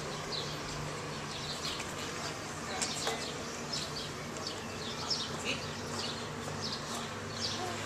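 Outdoor chirping: short high calls, several a second and irregularly spaced, over a faint low steady hum.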